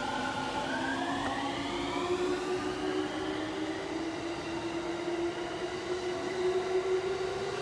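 Electric train accelerating: a whine of several tones from its traction motors rises steadily in pitch over a constant rumble.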